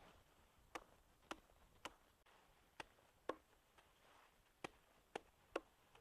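Machete chopping a bundle of green forage grass into short pieces on a wooden log as a chopping block: eight sharp chops at an uneven pace, roughly two a second.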